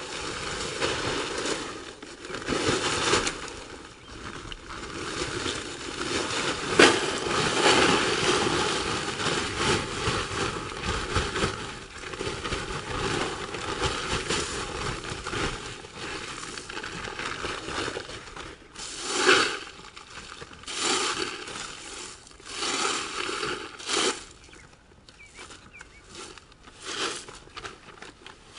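Gravel being poured from a bag into a drainage trench and worked by hand, crunching and rattling, with plastic moisture-barrier sheeting crinkling. The noise is fairly continuous in the first half, with a sharp crack about seven seconds in, then breaks into separate short scrapes and crinkles.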